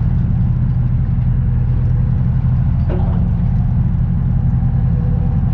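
A steady, low engine drone holding an even pitch.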